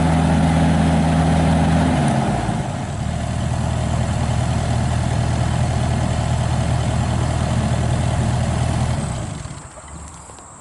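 John Deere 50G mini excavator's diesel engine running, dropping to a lower, steady speed about two seconds in, then shut off near the end.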